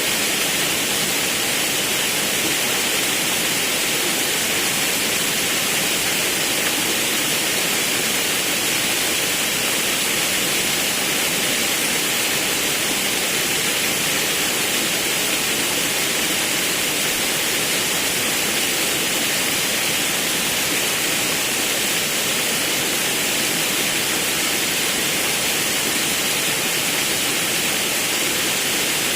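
Forest river water rushing over a waterfall: a steady, unbroken hiss of falling water that holds level throughout.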